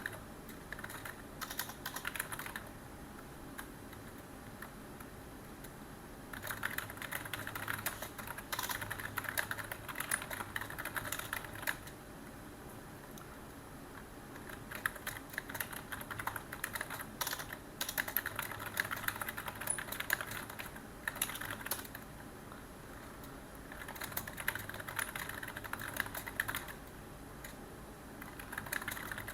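Typing on a computer keyboard: quick, dense runs of key clicks lasting a few seconds each, broken by short pauses about four times.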